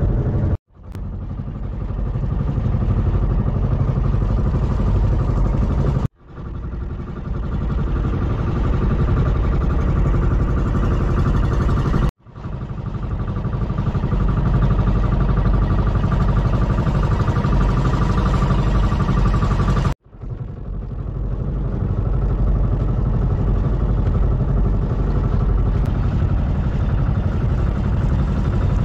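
Boat engine of a small outrigger fishing boat (bangka) running steadily under way. The sound cuts out briefly four times and fades back in.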